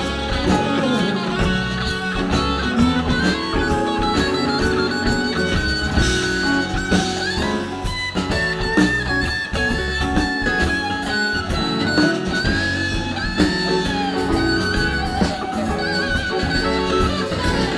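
Live band playing an instrumental passage on electric guitars, keyboard, drum kit and congas, with a sustained lead line bending in pitch over the band.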